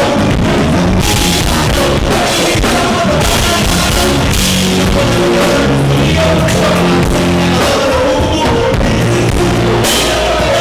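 Live band playing a song, with drum kit and a stepping bass line, loud and even throughout.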